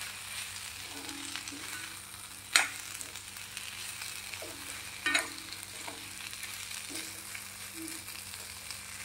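Drumsticks and tomatoes sizzling in oil with mustard paste in a frying pan, with a spatula stirring and scraping them about. Two sharp knocks of the spatula against the pan come a few seconds apart.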